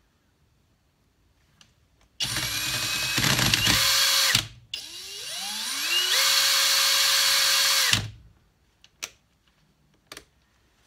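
Cordless drill spinning a cotton buffing mop, run twice by its trigger. The first run starts abruptly about two seconds in and stops after about two seconds; the second winds up in pitch, holds steady and cuts off near eight seconds, followed by a couple of faint clicks.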